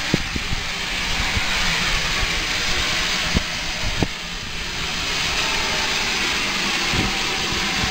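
GWR 5600 Class 0-6-2T steam tank locomotive standing, steam hissing steadily from it. Two short sharp clicks come about half a second apart near the middle.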